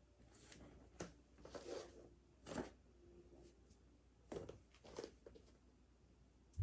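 Soft rustling of clothing and body against a mat from a person doing full prostration bows: a series of brief rustles and shuffles.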